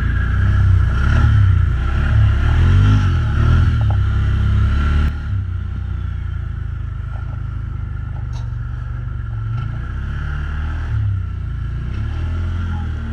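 ATV engine revving hard, its pitch rising and falling, then easing to a steadier, lower drone about five seconds in.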